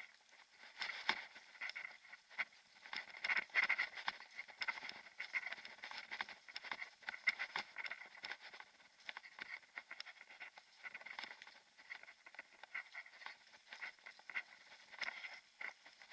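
Mountain bike rolling over a gravel forest track: a constant, irregular clatter of small clicks and rattles from the tyres on stones and the bike jolting.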